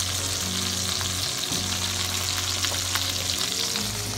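Butter and teriyaki glaze sizzling and crackling around a baked steelhead fillet in a hot glass baking dish, a steady hiss with many small pops. Background music with low held bass notes plays underneath.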